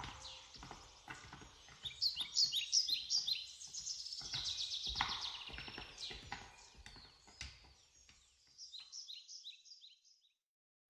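Small songbird calling in a run of short, high chirps, many falling in pitch, ending in a spaced series of about six notes. Scattered low knocks sound underneath.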